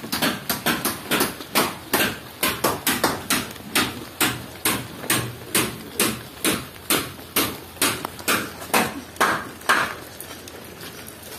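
Footsteps on wet, gritty ground, a sharp step about two to three times a second, stopping about ten seconds in.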